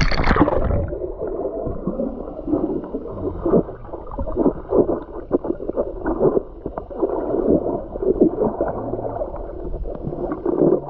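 A splash as the camera goes under the surface, then muffled underwater sound of bubbling, gurgling water with irregular swishes, dull and without any high tones.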